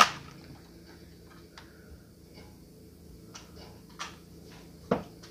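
Small clicks and taps of a plastic cosmetic kit package being handled and its pieces rearranged, opening with a sharp knock and ending with a dull thump.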